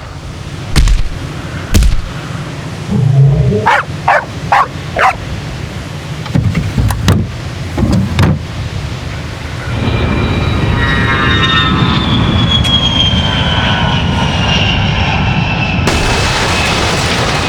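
A string of separate sound effects. First come several knocks, then a dog's short yips and barks, then from about ten seconds in a steady rumble with a high whine that slowly falls in pitch, like a passing train.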